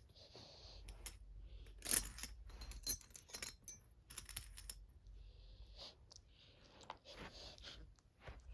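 Fidget spinners clicking and clinking faintly against one another as they are handled and set down, a scattered run of small clatters.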